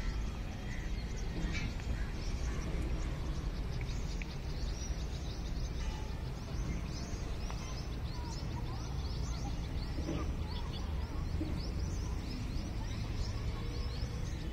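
Many small birds chirping: a dense chatter of short, quick, high chirps that thickens a few seconds in, over a steady low rumble.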